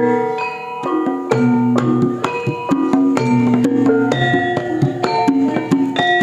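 Javanese gamelan playing an opening piece (gending pambuka): bronze metallophones struck in a steady rhythm, their tones ringing on, with drum strokes among them.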